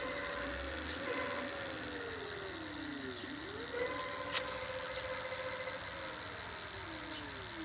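A 500 W 48 V electric hub motor whining as the wheel speeds up and slows down several times, the pitch rising and falling and holding at a steady high speed for about two seconds in the middle.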